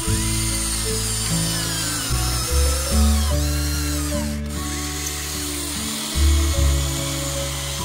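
Background music, over the whine of a Huina remote-control toy excavator's small electric motors, which falls in pitch several times as the arm and bucket dig into the dirt.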